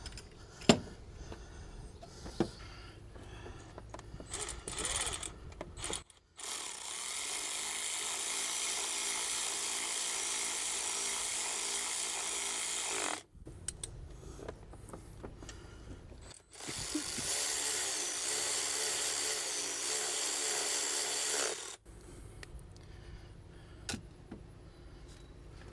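A cordless power tool runs steadily twice, for about seven seconds and then about five, driving in the alternator's mounting bolts. Light metallic clicks and knocks of tools and parts come before and between the runs.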